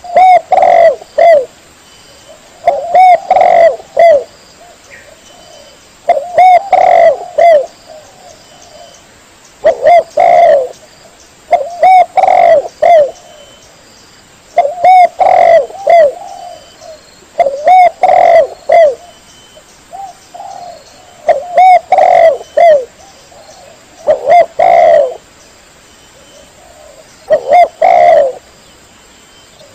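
Spotted dove cooing: a phrase of three or four low coos, repeated about every three seconds, some ten times.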